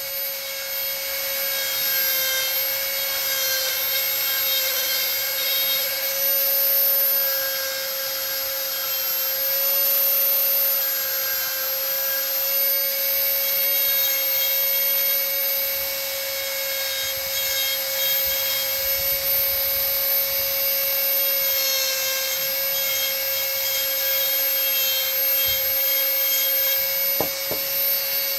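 Dremel rotary tool on a flex shaft running at a steady speed with a steady whine, its carving bit grinding and rubbing into the wood.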